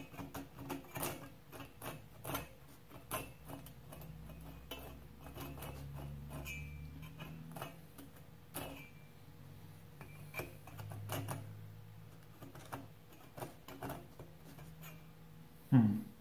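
Small fine-toothed Kobalt hand saw working back and forth on a thin wooden kit pin, in short uneven scraping strokes with sharp clicks as the teeth catch. He judges the saw to have too many teeth for this cut. A short louder sound comes just before the end.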